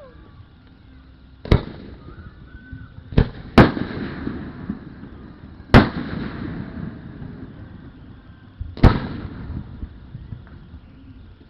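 Aerial fireworks shells bursting: five loud booms spread unevenly, two of them close together, each trailing off in a rumbling echo.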